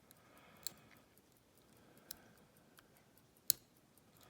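Lock pick working the pins of a Scandinavian oval lock cylinder: about four small, sharp metallic clicks, the loudest about three and a half seconds in.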